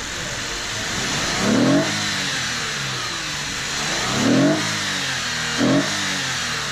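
2014 Lexus IS250's 2.5-litre V6, breathing through a freshly fitted AFE cold-air intake and Invidia exhaust, blipped three times from idle, each rev rising quickly and falling back, the third shorter than the first two.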